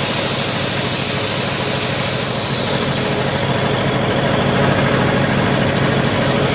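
The gasoline engine of a Lincoln SA-200 welder-generator running steadily, with a high whine that slides down and fades out about three seconds in. It runs a little rough, which the owner says sounds like it needs a tune-up, such as new plugs or a carburetor cleaning.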